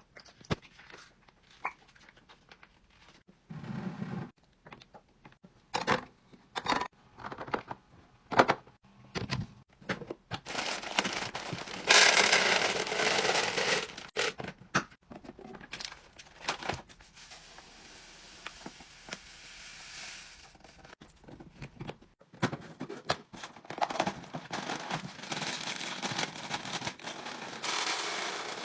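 Containers and packaging being handled: a series of separate clicks, knocks and taps with crinkling and rustling. About eleven seconds in comes a longer rushing noise lasting a few seconds, and a fainter one near the end.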